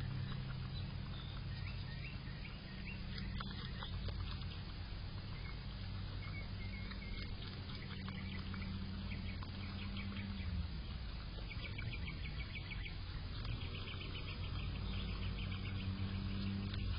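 Groundhog chewing a crisp green vegetable held in its paws, a fast run of small crunching clicks that grows denser in the second half. A low steady hum lies underneath and dips in pitch about ten seconds in.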